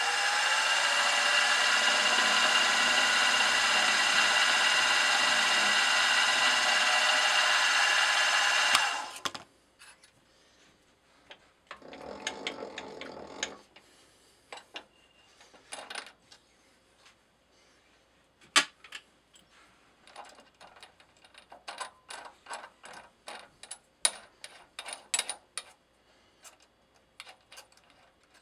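Milling machine spindle running steadily with a whine while center-drilling a brass workpiece, rising in pitch as it comes up to speed, then switched off about nine seconds in. A shorter, quieter burst follows a few seconds later, then scattered light metallic clicks and taps as the drill chuck is handled to change bits.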